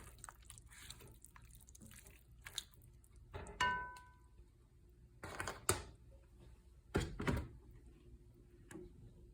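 A cooking utensil knocking and scraping against the pan and plate while the pasta is dished up: a few separate clanks, one of them about three and a half seconds in leaving a short metallic ring.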